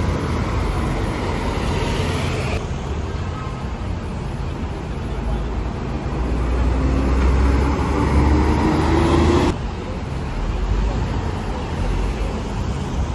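Three-axle double-decker bus engines running as the buses turn and pull away, over steady city traffic rumble. About halfway through, a whine climbs in pitch as a bus accelerates, then the sound cuts off suddenly.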